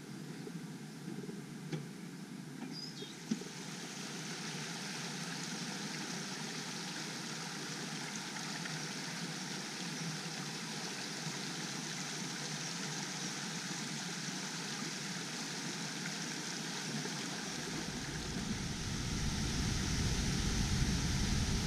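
A rushing forest stream: a steady wash of running water that sets in about three seconds in and grows fuller and deeper near the end. A couple of soft knocks come before the water sets in.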